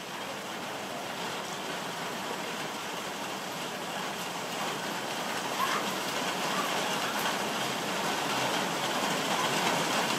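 Heavy rain falling, a steady wash of noise that grows gradually louder as the downpour builds.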